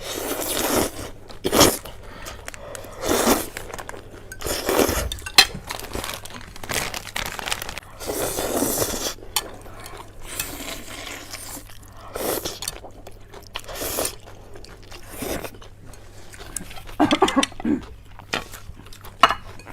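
Close-miked eating of chewy sesame-paste cold noodles: chewing and mouth noises in irregular bursts of a second or less, with brief gaps between mouthfuls.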